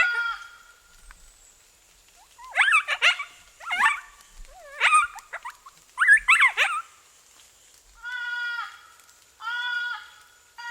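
Predator calls sounding animal distress cries to draw coyotes: a run of wavering, warbling cries, then three steady bleats about a second apart, like a fawn in distress.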